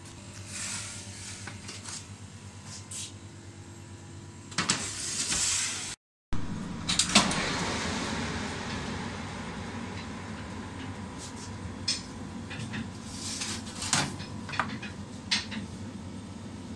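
Metal baking trays and pans clanking and knocking against a bakery rack oven and its door, over the oven's steady hum. The sound cuts out briefly about six seconds in.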